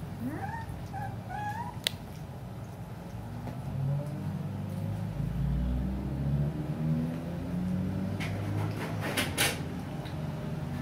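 A 21-day-old puppy whining: a thin cry rising and wavering in pitch in the first couple of seconds, followed by low grumbling sounds, with a few sharp knocks of handling.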